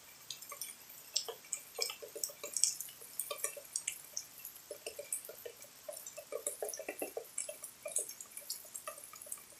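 Rain dripping: irregular drops falling and plinking, several a second, some with a short hollow pitch.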